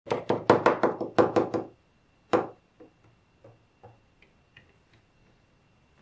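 Small magnetic balls clicking as they snap together: a fast run of about nine sharp clicks in the first second and a half, one more loud click a little later, then fainter single clicks about every half second.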